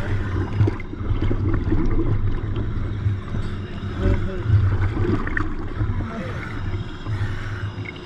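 Water sloshing and bubbling around a diver going into the water, close up, over a low, uneven rumble.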